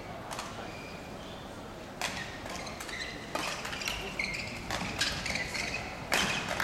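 Badminton rally: rackets striking the shuttlecock about every second and a half, the hardest hit near the end, with short squeaks of court shoes between the strokes.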